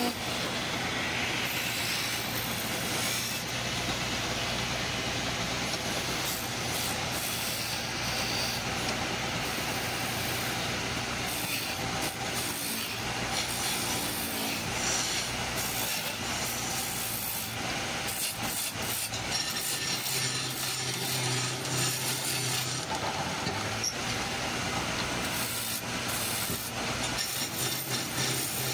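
Wood lathe running with a steady motor hum while a turning chisel cuts the spinning wood, giving a continuous rasping, scraping noise with uneven scratchy patches.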